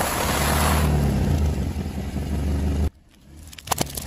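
Car engine running with a steady low hum while its tyre rolls over and crushes a pile of small cereal balls, a dense crunching hiss for the first second. The sound cuts out about three seconds in, followed by a few sharp cracks near the end.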